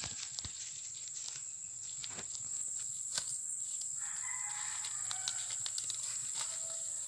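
Footsteps in flip-flops on dry leaves and brush, with scattered crackles, over a steady high-pitched insect drone. A faint distant call comes about four seconds in.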